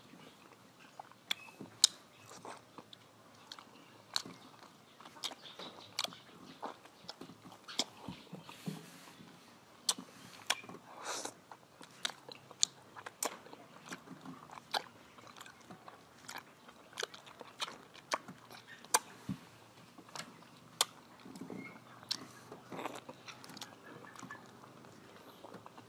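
Close-up biting and chewing of firm green mango, a string of sharp, irregular crunches and mouth clicks.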